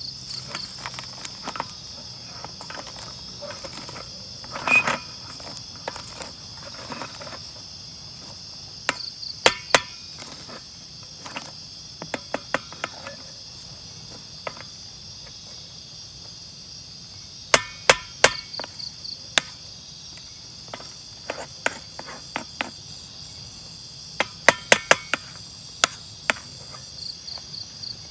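Night insects, crickets among them, chirping steadily, with a short pulsed trill repeating every several seconds. Sharp taps or knocks break in irregularly, several times in quick clusters.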